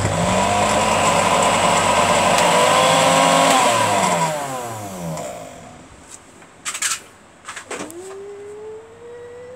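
Electric motor of a Loyola PJ-437 juicer-blender base switched on, spinning the empty blender jar with a steady whine for about four seconds, then slowing down with a falling pitch as it is switched off. A few light clicks follow near the end.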